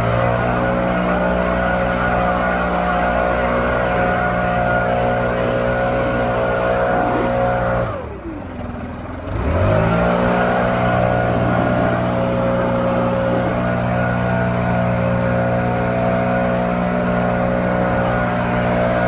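STIHL BR700 backpack leaf blower's two-stroke engine running at full throttle. About eight seconds in the throttle is let off: the engine drops toward idle for a second or so, then revs back up to full speed and holds steady.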